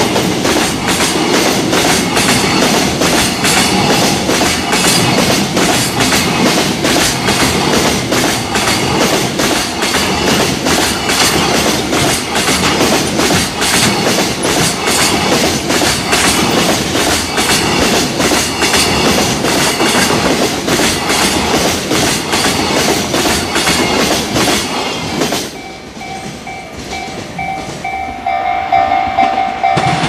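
Container wagons of a long freight train passing at speed, the wheels clattering loudly and rapidly over the rail joints. The clatter stops about 25 seconds in, leaving a level crossing warning bell ringing in a steady repeating pattern.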